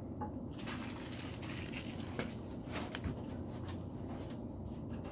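Spatula stirring and scraping in a pan of oil with melting shatter: an irregular scraping rustle with small clicks that stops about four seconds in, over a steady low hum.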